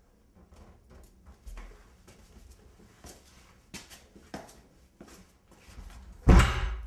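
Footsteps climbing a staircase, a dozen or so uneven steps, then a door bangs shut near the end, the loudest sound, and its echo dies away.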